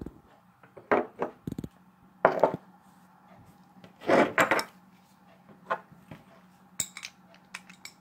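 Irregular knocks, taps and clatter of small hardware being handled on a countertop: a microwave turntable motor and alligator-clip leads being picked up and set in place. The loudest and longest clatter comes about four seconds in.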